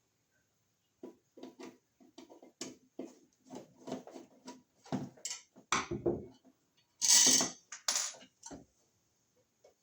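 Metal raceway parts and boxes knocking and clattering as they are handled, in a string of separate knocks. The loudest is a short, scraping metal rattle about seven seconds in, followed by another a second later.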